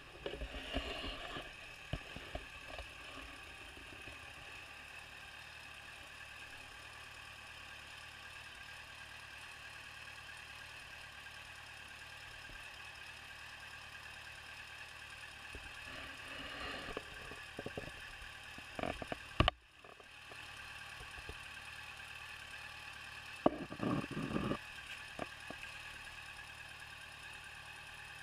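Yamaha FZ6 Fazer S2 inline-four engine running steadily at idle, with a knock from inside the engine: the fault being shown. Scattered clatters and a sharp click come about two-thirds of the way through.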